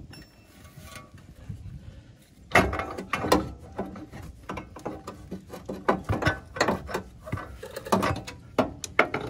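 Front CV axle of a 2007 GMC Sierra being worked loose and pulled out: irregular metal clunks and clicks from the jointed shaft and its inner flange as it is wiggled free, starting a couple of seconds in.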